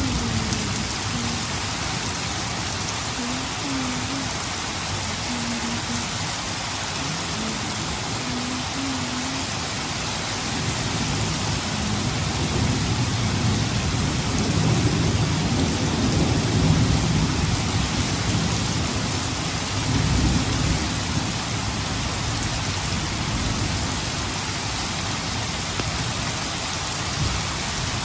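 Steady heavy rain falling, with low rolling rumbles of thunder that fade out in the first second and swell up again through the middle.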